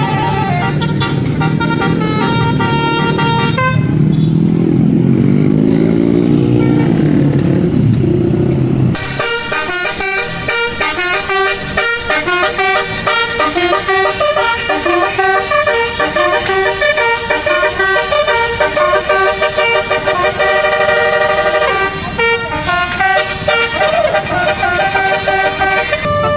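Bus telolet horn (a Basuri multi-trumpet musical air horn) playing a melody of quick-changing notes. In the middle a lower tone slides up and down for several seconds before the high, fast melody returns and runs on.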